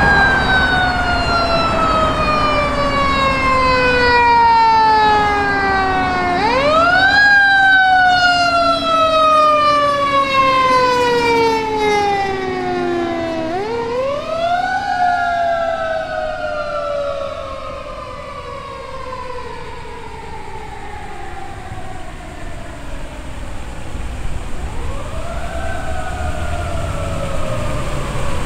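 Fire engine siren wailing: it winds up quickly, then slowly falls in pitch, and is wound up again three more times.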